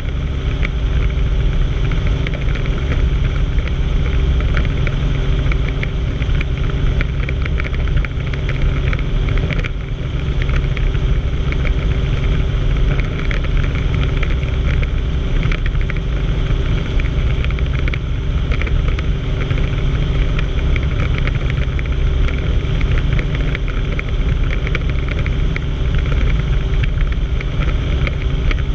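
Helicopter in level flight: steady engine, transmission and rotor noise with a deep rumble and a few constant tones, unchanging in pitch.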